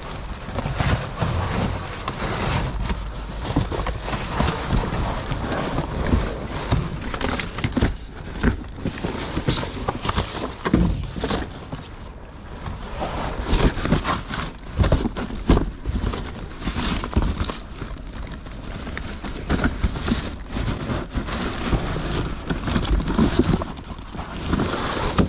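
Cardboard boxes and plastic wrap rustling, scraping and knocking as they are shifted and rummaged through by hand, with many sharp knocks scattered throughout.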